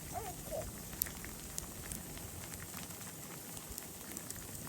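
Falling snow pattering: a faint, steady crackly hiss with scattered light ticks.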